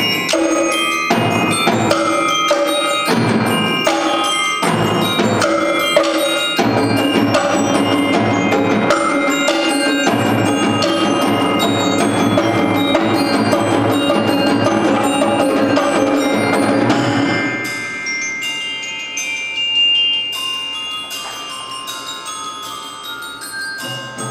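Student percussion ensemble playing: drums, cymbals and mallet keyboards struck together in a busy steady rhythm. About 17 seconds in the drums drop out and the music goes quieter, leaving ringing mallet-keyboard notes and lighter strikes.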